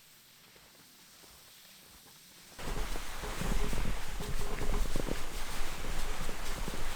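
Faint near-quiet hiss, then about two and a half seconds in, footsteps crunching through snow begin abruptly: an uneven run of crunches over a low rumble.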